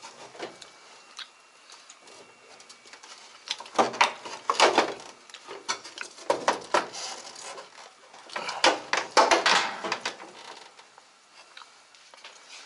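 Clicking, scraping and rattling of tools and washing-machine parts being handled during disassembly, in three bursts of busy clatter with quieter handling between them.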